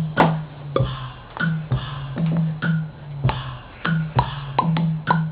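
Hip-hop track with a drum-machine beat: sharp hits about twice a second over a low, repeating bass line.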